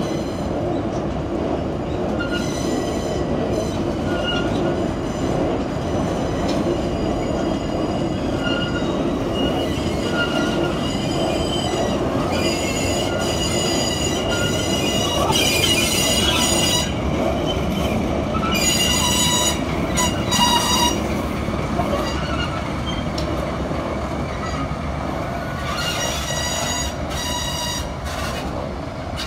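Meitetsu 2230-series railcars rolling slowly around a curve behind a diesel locomotive, their steel wheels squealing in high ringing tones that come and go over a steady low rumble of the train. The squeal is loudest about halfway through and again near the end.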